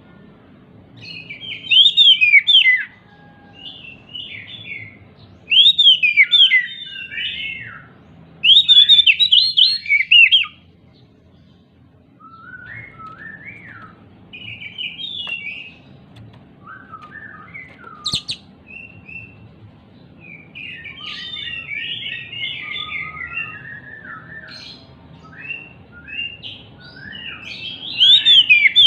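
An agitated oriental magpie-robin singing: loud bursts of rich, varied whistled phrases, with quieter twittering runs between them. There is a single sharp click about halfway through.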